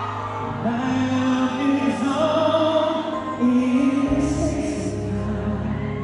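A male singer singing live through a concert sound system, holding long notes over sustained band accompaniment; a deeper bass part comes in about four seconds in.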